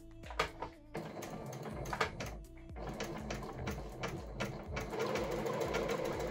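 Computerised sewing machine stitching a single letter A from its letter program. A couple of sharp clicks come first, then about a second in the needle starts running fast, getting louder toward the end.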